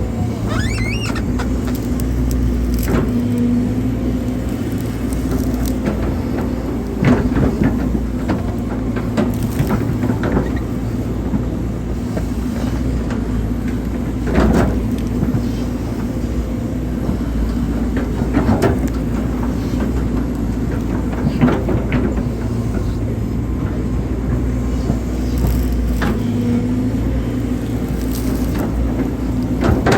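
Hydraulic excavator's diesel engine running steadily under working load, with scattered knocks and clanks from the machine as it digs.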